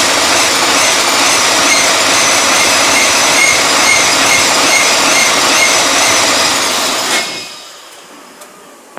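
V-46-4 V12 tank diesel running loudly with a steady high whine, being shut down after a short run under light load. About seven seconds in the sound cuts off and runs down within half a second.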